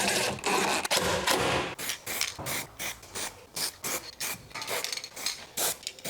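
Hand-worked rasping strokes, like a tool rubbing on a hard surface. A longer continuous stretch comes first, then short quick strokes about three or four a second.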